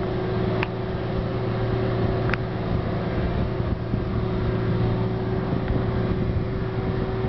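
Diesel engine of a Shuttlelift DB rubber-tyred gantry crane running at a steady speed as the crane drives, a constant drone with a low hum. Two brief high squeaks come about half a second and two seconds in.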